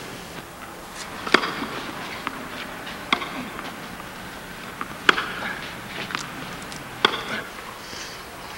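Four sharp knocks about two seconds apart, with a few fainter ticks between them, over a light steady background.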